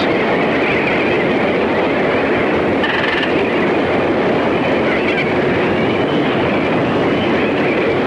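Steady rushing noise of sea and wind, loud and unbroken, with a faint higher wavering sound about three seconds in.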